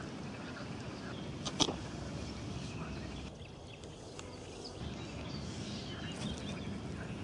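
Riverside outdoor ambience: a steady low rumble with faint, scattered bird chirps, and one sharp click about a second and a half in.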